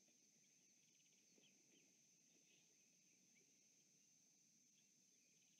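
Near silence: faint outdoor ambience with a steady high insect drone and a few faint, scattered bird chirps.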